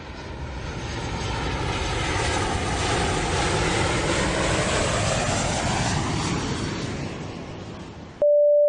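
Airplane flying past: a broad engine rush that swells, holds and fades, with tones that glide in pitch as it goes by. Near the end it cuts off suddenly into a loud single chime tone, the first note of an airliner cabin announcement chime.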